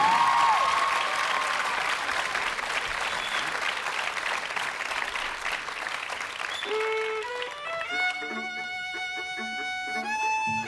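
Audience applause for about the first six seconds, then a violin plays a quick rising run of notes into long held notes, with lower string notes coming in beneath.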